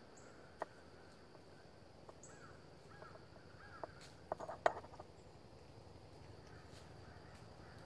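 Quiet woodland ambience: a steady, high insect drone, with a few short bird calls and a quick cluster of sharp clicks about halfway through.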